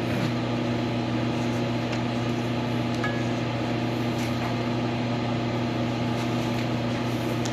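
Lathe motor running steadily with an even, low hum.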